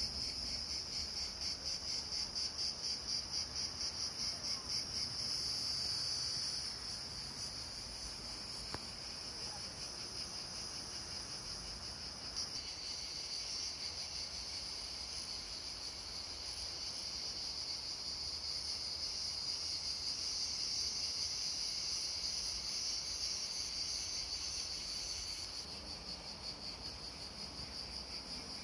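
A dense chorus of insects trilling, steady and high-pitched. For the first several seconds it swells and fades about twice a second, and the texture shifts twice, about six and twelve seconds in.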